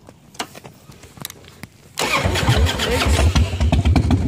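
A few light clicks, then about two seconds in a motorcycle engine starts and runs loudly with a fast, pulsing beat.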